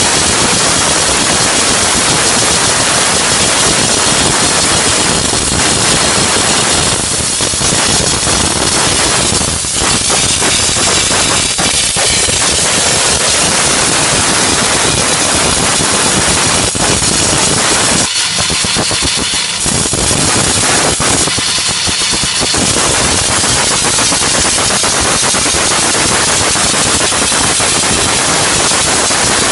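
Diesel-fired steam car-washing machine running with its steam outlet blowing, a loud steady hiss over the machine's running noise. The lower part of the sound drops out briefly twice past the middle while the hiss goes on.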